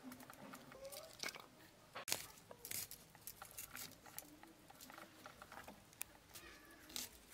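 Shallots being sliced on a boti, a floor-mounted upright blade, giving soft crunches and scattered sharp clicks as the cut pieces are set down on a steel plate.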